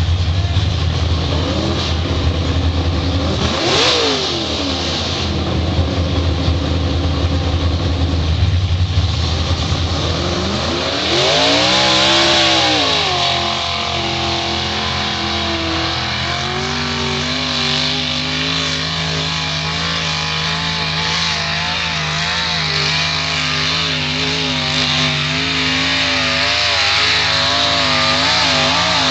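Chevy S10 Blazer 4x4 with a loud exhaust revving hard as it churns through deep mud. The revs swell up and fall back about four seconds in and again around eleven seconds in, then waver up and down as the tyres spin and grip in the mud.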